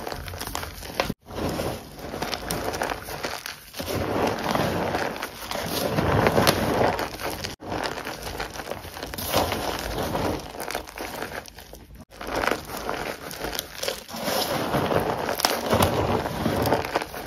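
Hands squeezing and crumbling crushed gym chalk: a dense crunching and crackling that swells and fades with each squeeze, breaking off suddenly for an instant three times, about 1, 7.5 and 12 seconds in.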